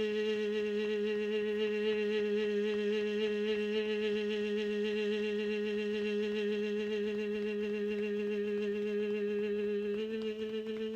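One long tone held on a single steady pitch by a human voice, sung out on the breath. It steps slightly higher about ten seconds in.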